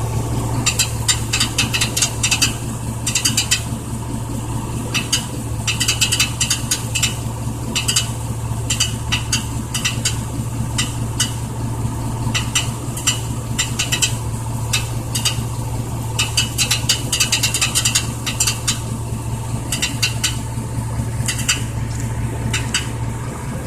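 1999 Chevy Silverado running with a steady low hum, overlaid by an irregular rattle of quick clicks coming in clusters every second or so. The cause of the rattle is unknown to the owner.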